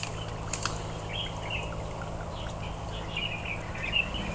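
Small birds chirping again and again in short calls, with a couple of faint clicks about half a second in and near the end.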